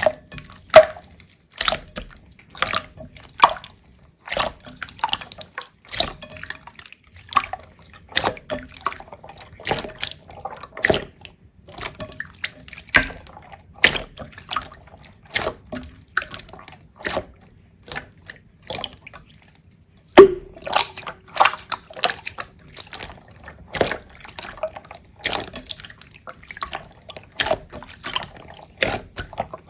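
Slime being squished and pressed, making an irregular stream of wet clicks and pops, several a second, with one louder pop about twenty seconds in.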